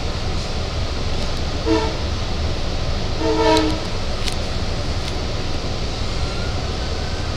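Train horn sounding twice, a short blast and then a longer one about a second and a half later, over the steady rumble of a Long Island Rail Road C3 bilevel coach rolling along the track, heard from inside the coach.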